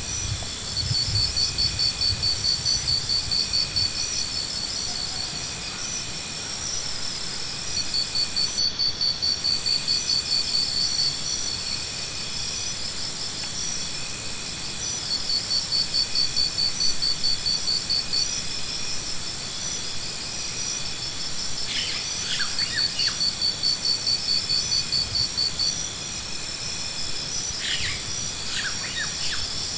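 Insects trilling outdoors: rapid pulsed phrases about three seconds long, repeating every six to seven seconds, over a steady high-pitched insect hum.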